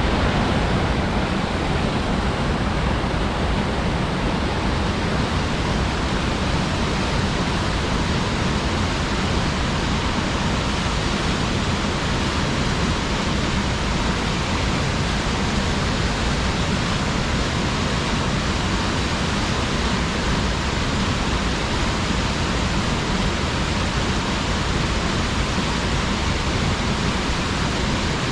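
Waterfall: a large fall of water plunging and splashing, a steady, even rush with deep low rumble.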